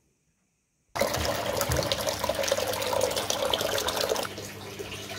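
Samsung Eco Bubble front-loading washing machine washing: water sloshing in the tumbling drum over a steady motor hum, starting suddenly about a second in and dropping to a quieter level about three seconds later. The machine is running normally again after its drum motor's carbon brushes were replaced to cure a 3E error.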